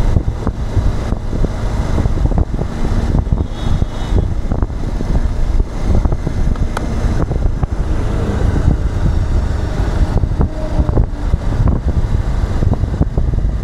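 Road traffic noise with heavy wind rumble on the microphone, a steady low roar, with a couple of short faint tones in the traffic about four and ten seconds in.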